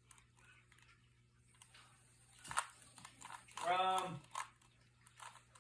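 A person's voice: one short pitched vocal sound, about half a second long, with a sharp click just before it.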